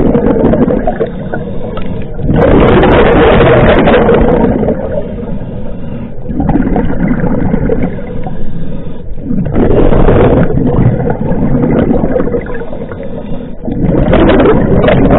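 Scuba diver's breathing through a regulator, heard underwater: three loud bursts of exhaled bubbles about every five to six seconds, with quieter stretches between breaths.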